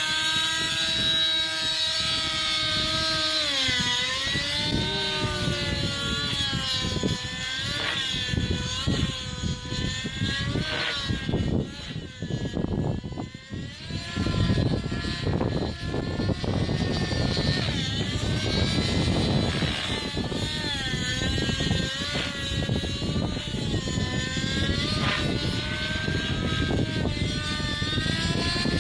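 Nitro-engined TSA Infusion 600N RC helicopter in flight: its engine and rotor hum rise and fall in pitch again and again as it manoeuvres. The sound fades briefly a little before halfway, while the helicopter is high up, then comes back.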